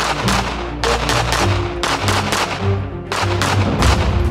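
Walther PDP pistol fired in quick strings, several sharp shots at about two to three a second, over background music.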